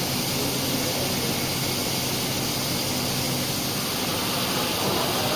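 Five-axis CNC tool grinder running its grinding cycle: a steady hiss with a low machine hum, oil coolant spraying inside the enclosure.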